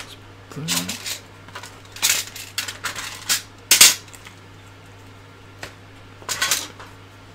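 Tools and small parts clattering and clinking in a tray as a hand rummages through it, in irregular bursts of sharp rattles, with the loudest clack a little before the middle.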